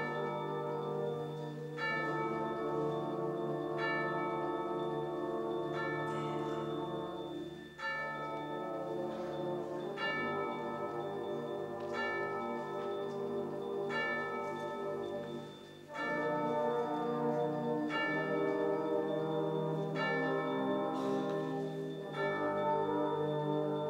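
Tubular bells struck with a mallet about every two seconds, each stroke ringing on in a slow, steady toll over sustained chords held by a wind band.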